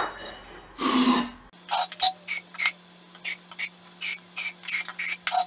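A short hiss from an aerosol spray can with an extension straw, lasting about half a second, about a second in. Then a run of short, sharp clicks and taps of hand tools, two or three a second, over a steady low hum.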